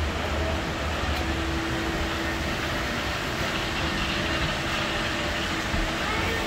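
Fifth-generation Hong Kong Peak Tram, a cable-hauled funicular car, running on its track: a steady rumble and running noise, with a faint hum for about two seconds near the start.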